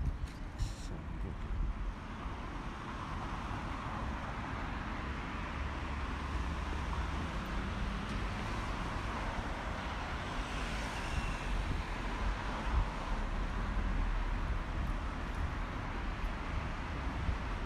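City street traffic: cars driving past on the road, a steady mix of engine and tyre noise with a low rumble.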